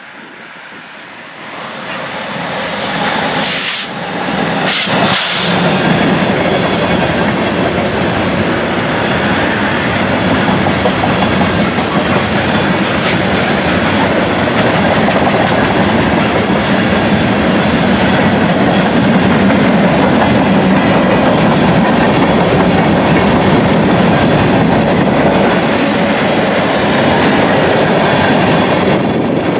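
Freight train passing close by: the two BNSF diesel locomotives' sound swells over the first few seconds, with two brief high-pitched bursts about four and five seconds in. Then the steady rolling rumble and clickety-clack of the wheels of tank cars and covered hoppers going past.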